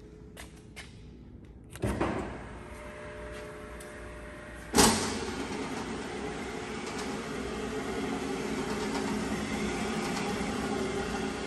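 A 3 cu ft stainless V blender starting up: a few light clicks, a thump about two seconds in, and a loud clunk near five seconds, after which its electric drive motor and gearbox run steadily as the V shell turns.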